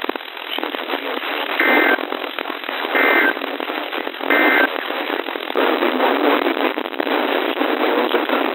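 Three short two-tone EAS data bursts, an end-of-message code, sent about 1.3 s apart over steady radio static hiss. The static runs on after the third burst.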